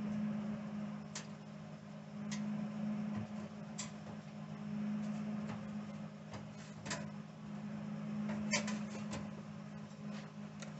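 A steady low hum with scattered light clicks and ticks, a small cluster of them near the end. No welding arc is running.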